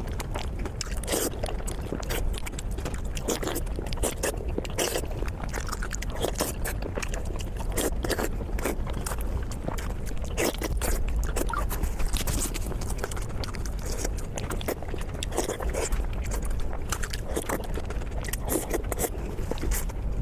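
Eating sounds: chewing and biting with many irregular short clicks and occasional scrapes, over a steady low hum.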